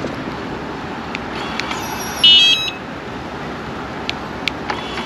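RV Lock Atlas keyless door handle giving one short electronic beep, about half a second long, roughly two seconds in, in answer to a key-fob button press. A few faint clicks come before and after it.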